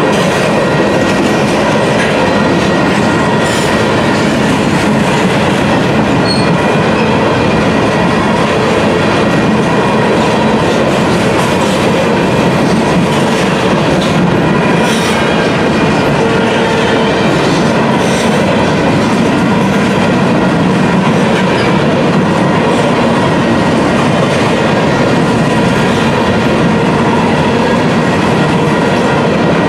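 Union Pacific freight train of covered hopper cars rolling past: a steady, loud sound of steel wheels running on rail, with no break or change.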